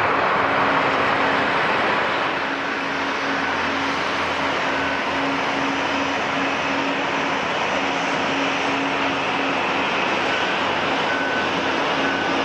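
Jet airliner engines running, a steady loud rush that eases slightly about two seconds in.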